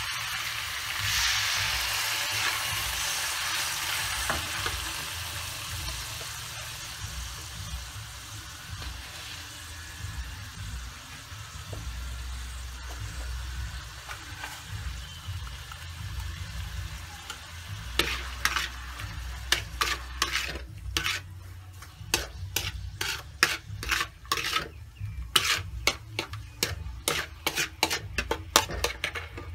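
Minced garlic frying in a hot steel wok. The sizzle swells about a second in as a dark sauce is poured in, then slowly dies down. In the last third, a metal spatula scrapes and clicks against the wok in quick, uneven strokes as the mix is stirred.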